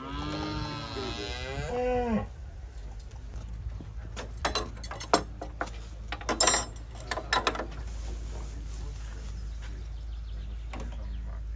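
Charolais cattle mooing: one long call of about two seconds that bends up and down in pitch. A few seconds later come scattered clicks and knocks.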